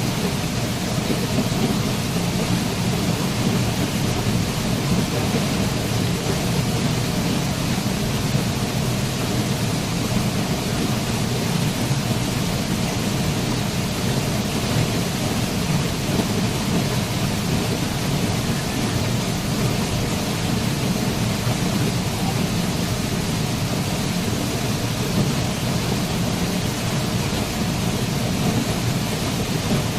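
Waterfall: a steady, even rush of falling water with a deep rumble underneath.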